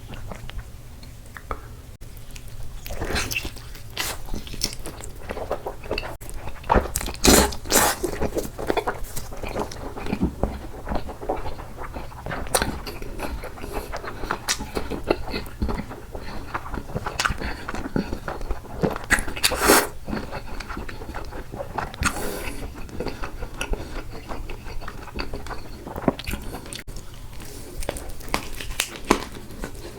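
Close-miked chewing and biting of food, with irregular crunches and mouth clicks and smacks.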